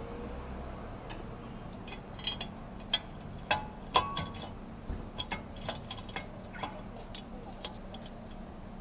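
Irregular light metallic clicks and taps as the cutting head of a DBL 3000 on-car brake disc lathe is handled and positioned around a brake disc, over a faint steady hum. One sharper clink about four seconds in rings briefly.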